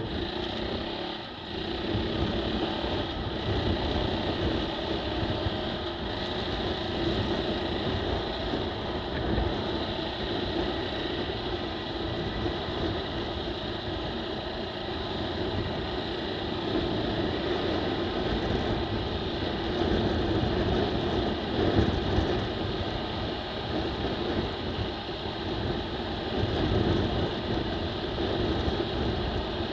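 KTM 450 EXC single-cylinder four-stroke enduro engine running steadily under way, with a brief dip in level about a second and a half in. Wind rumbles on the helmet-mounted microphone underneath.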